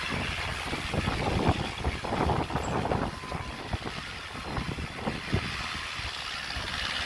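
Heavy earthmoving machine running with a steady engine rumble, along with irregular knocks and rattles that are thickest in the first few seconds.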